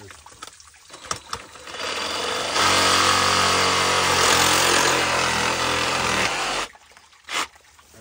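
Cordless reciprocating saw cutting through a broken PVC water line. It starts about two seconds in, runs steadily with a buzzing motor hum for about four seconds, and stops abruptly near the end.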